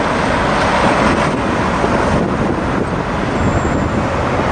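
Articulated city bus driving off through an intersection, heard within steady, loud city traffic noise. A car passes close by near the end.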